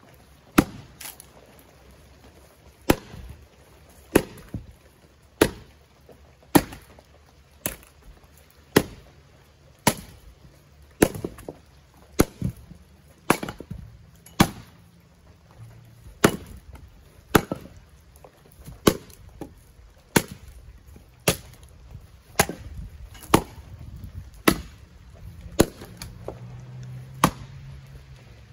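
Double-bit axe splitting firewood rounds: a fast run of about two dozen sharp chops, roughly one a second.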